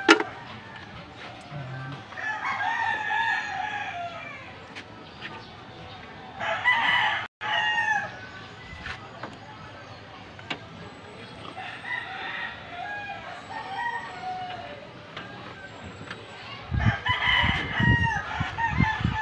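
Roosters crowing, about four long crows a few seconds apart, each falling in pitch at the end. There is a sharp click at the very start and a few low thumps near the end.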